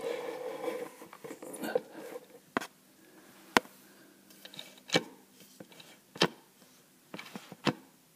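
Plastic washing machine agitator parts turned by hand: a short rubbing sound, then sharp single clicks at uneven gaps of about a second, as the agitator dogs catch on the teeth of the planetary gear.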